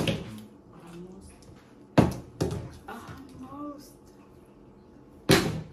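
Plastic water bottle tossed in a bottle flip and landing on a wooden table. It hits with a sharp thump and a second, smaller bounce about two seconds in, then lands again with a thump near the end.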